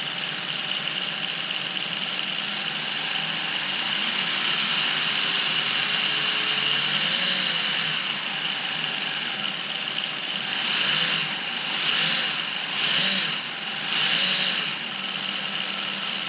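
Motor-driven PVC model V6 engine running, its fan and belt pulleys spinning with a steady whirring whine. In the last few seconds it swells louder and drops back four times.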